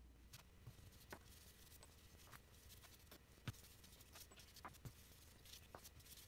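Faint clicks and light rustling as small steel cylinder head nuts and washers are handled in nitrile-gloved hands while assembly lube is applied, with one sharper tap about three and a half seconds in.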